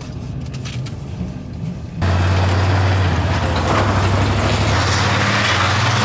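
For about two seconds, road noise inside a moving pickup's cab. Then it switches abruptly to a loud, steady low engine hum with a rushing hiss over it.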